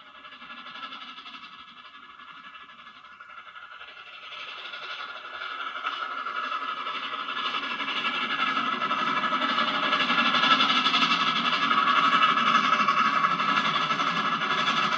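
LNER A4 Pacific steam locomotive and its train approaching and running past. The sound is faint at first, grows louder from about four seconds in, and runs steady from about eight seconds.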